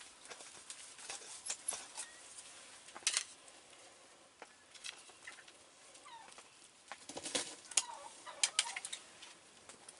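Wild turkeys giving short clucks close by, with scattered sharp clicks and rustles throughout and a busier cluster of them about seven seconds in.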